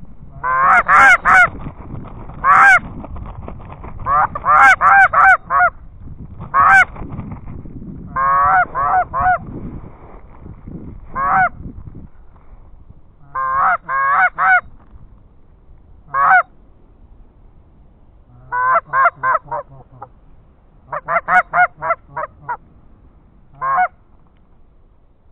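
Loud Canada goose honks in quick runs of two to five notes, with pauses of a second or two between runs and some single honks. A low rumble sits under the calls in the first half.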